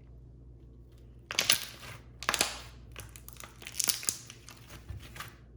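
Thick homemade slime squeezed and worked in the hands, giving a run of irregular crackling, clicking pops as air pockets burst.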